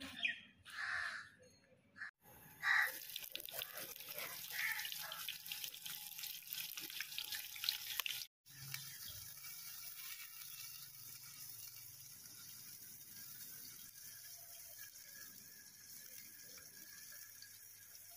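Running water, a steady rushing hiss that starts about three seconds in, drops out for a moment about eight seconds in, and then runs on more evenly.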